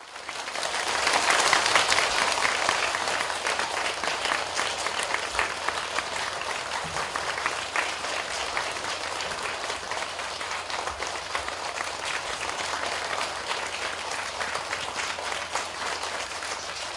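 Audience applauding, a dense patter of many hands clapping. It starts suddenly, swells to its loudest within the first couple of seconds and then carries on steadily.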